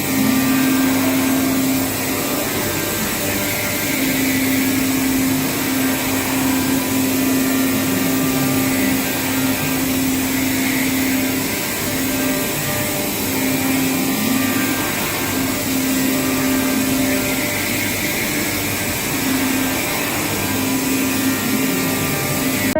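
CNC machine running through a cut: steady machining noise with a low hum that repeatedly stops and starts, and faint rising and falling whines from the motors.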